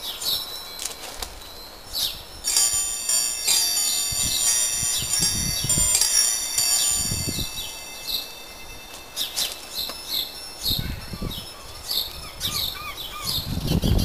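Wind chimes ringing, a cluster of long-held metallic tones that swells a couple of seconds in and fades after several seconds. Garden birds chirp throughout with short falling notes, and one bird gives a quick run of repeated notes near the end. A few low rumbles come and go underneath.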